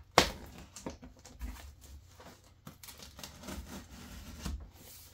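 Packing tape on a cardboard shipping box being slit open: scattered scraping, rustling and tearing of tape and cardboard, with one sharp click just after the start.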